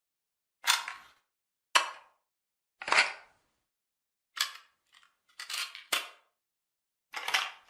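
Cassette player and cassette being handled: a series of about seven short, sharp plastic clicks and clunks, spaced one every second or so with silence between them.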